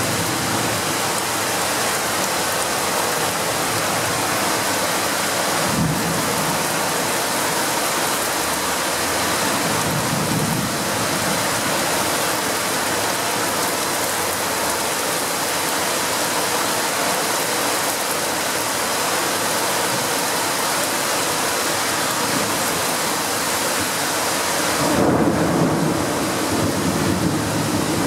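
Heavy rain pours steadily in a severe thunderstorm. A sharp crack of thunder comes about six seconds in, a low rumble follows around ten seconds, and a louder rolling rumble of thunder comes near the end.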